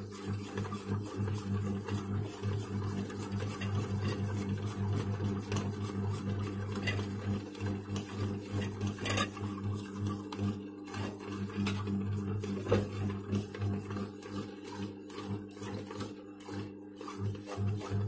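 LG HB-152CE bread maker kneading dough: its motor hums low and steady while the paddle turns the dough ball, and the sound pulses unevenly as the ball drags and knocks around the pan.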